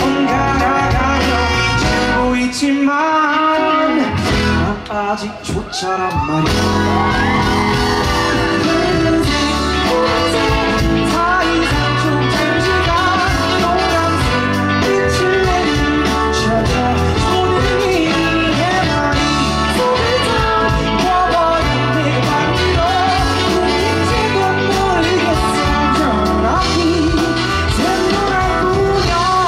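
A male singer singing a pop song live into a handheld microphone over full backing music. The low end of the accompaniment drops out for a few seconds near the start, then comes back in under the voice.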